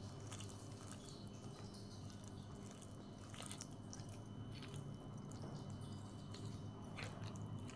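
Faint squishing and soft crackling of mashed boiled potato being mixed by hand with chopped onion, coriander, ginger and tomato on a paper plate, over a steady low hum.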